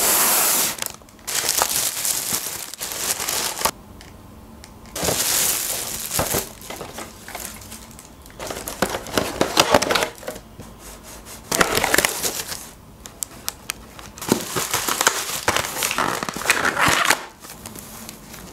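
Thin plastic carrier bag rustling and crinkling in repeated bursts, with the crackle of aluminium foil takeaway trays, as the trays are pulled out of the bag and handled.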